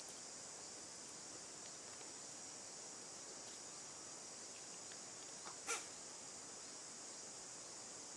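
Steady high-pitched insect chorus. One short sharp sound cuts in a little past halfway, with a fainter one just before it.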